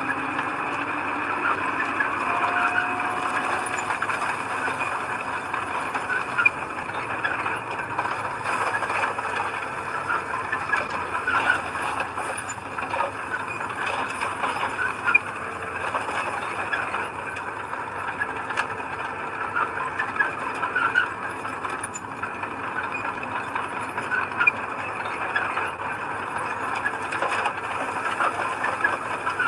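Bulldozer working, its engine running steadily under a constant metallic clatter with scattered clanks and squeaks.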